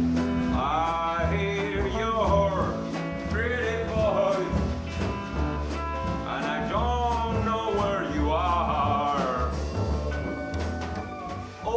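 Acoustic blues band playing an instrumental break: a lead melody in short phrases that bend and slide in pitch over a steady bass line.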